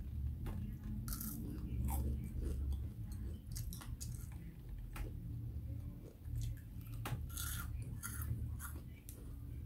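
Close-up chewing of a bite of deep-fried falafel with a super crunchy outside: irregular crisp crunches over a low mouth rumble.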